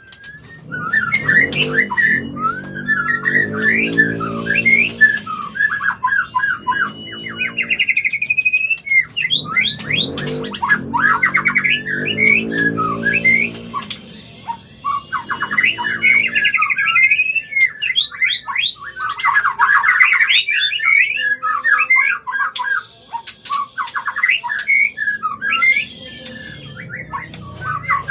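White-rumped shamas in breeding condition calling: fast, varied whistled song phrases and trills, broken by three bouts of low, harsh squawking chatter.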